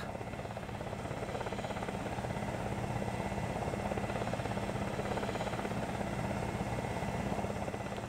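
Helicopter engine and rotor running steadily, with a fast, even beat from the rotor.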